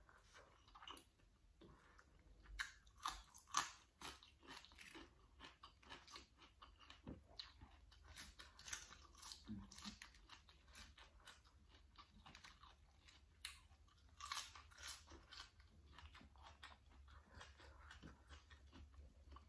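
A person chewing and crunching raw green vegetables close to the microphone: faint, irregular crisp crunches and mouth clicks, loudest about three seconds in and again around fourteen seconds.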